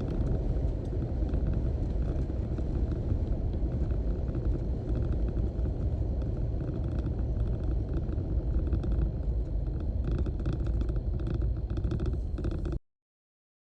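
Jeep Wrangler driving at speed: a steady heavy rumble of wind and road noise that cuts off abruptly near the end.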